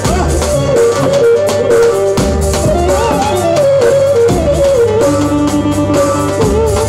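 Loud Romani wedding dance music: an ornamented, wavering melody over steady drum beats.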